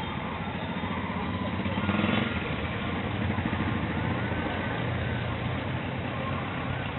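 Street traffic: engines of cars and minibuses running close by, a steady hum with one vehicle louder for a moment about two seconds in.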